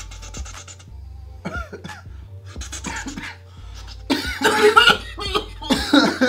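Men coughing after hits from a joint of cannabis. A long hissing draw on the joint comes first, then scattered coughs, with the loudest coughing fits about four seconds in and again near the end.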